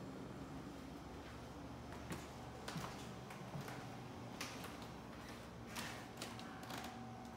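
Faint scattered clicks and knocks over a low steady hum: footsteps on a hardwood floor, then a closet doorknob turning and its latch clicking near the end.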